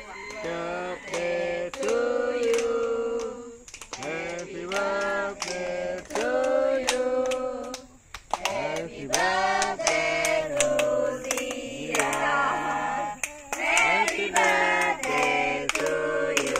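A group of women and children singing a birthday song together in held, drawn-out phrases, with hand claps keeping time throughout.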